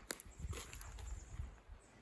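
Faint footsteps, soft thuds about every half second, with a sharp click just after the start.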